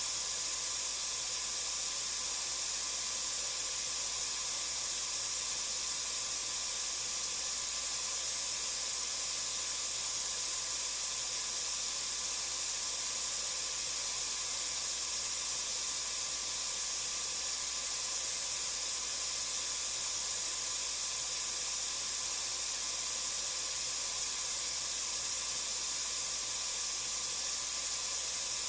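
Vacuum cleaner running steadily: an even, high-pitched hiss of rushing air with a thin, steady motor whine above it.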